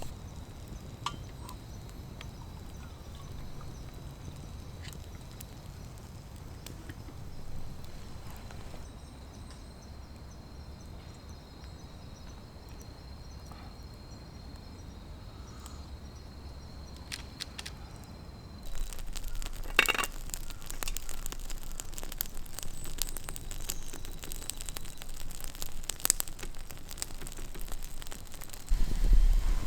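Quiet forest ambience with a faint steady, high insect trill. About two-thirds in it turns abruptly louder, with dense, irregular crackling and snapping.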